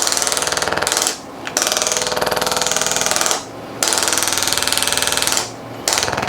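Handheld chiropractic impulse instrument delivering rapid mechanical taps to the sacroiliac joint, in runs of one to two seconds with short pauses between them. Three runs, with a fourth starting near the end.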